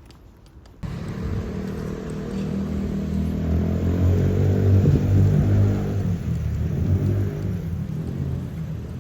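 A low engine or motor running, cutting in abruptly about a second in and swelling a little towards the middle.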